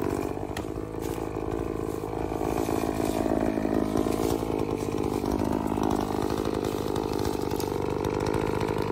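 Efco MT 5200 51.7cc two-stroke chainsaw idling steadily just after being let off the throttle.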